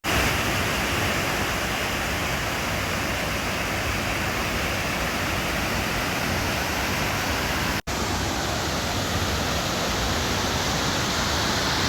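Steady rush of a fast-flowing river, a dense even noise with a brief break about two-thirds of the way in.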